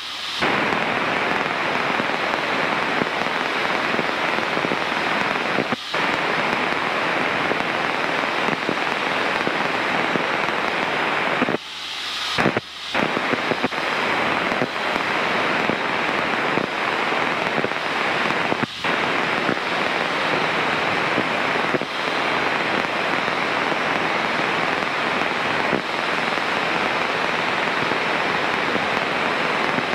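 Steady hiss of radio static from the aircraft's communication radio, the interference that marks this flight's recording. It is broken by a few brief dropouts, the longest lasting about a second near the middle.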